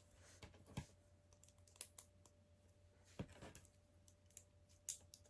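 Near silence broken by about four faint clicks and taps of LEGO plastic pieces being handled.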